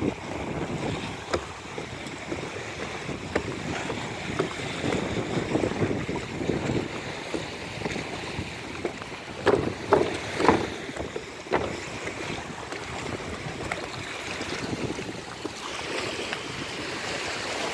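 Sea waves lapping around a floating plastic walkway, with wind buffeting the microphone and scattered short knocks. A brief cluster of louder knocks or slaps comes about ten seconds in.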